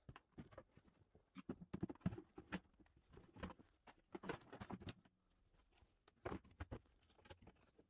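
Faint, irregular clicks and knocks of plastic scooter bodywork and the underseat storage bin being handled. They come in a dense cluster for a few seconds, then a few more knocks near the end.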